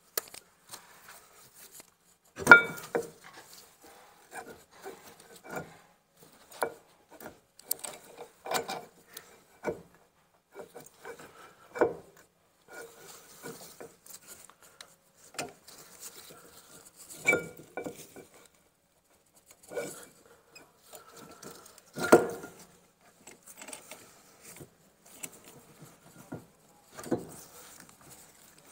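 Caliper wind-back tool clicking, knocking and scraping against a Ford Transit Mk7 rear brake caliper as it is worked to screw back a stiff piston. The sounds come irregularly, with a louder knock about two and a half seconds in and another about twenty-two seconds in.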